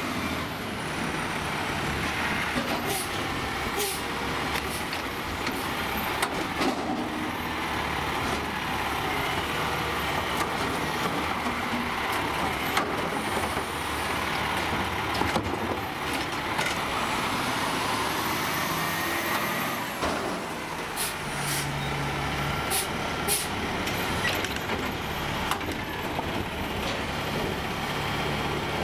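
Heil Durapack SST automated side-loader garbage truck working a curbside cart: the engine runs throughout while the hydraulic arm grabs and tips the cart, with a whine from the hydraulics, scattered knocks of the cart and arm, and air-brake hisses.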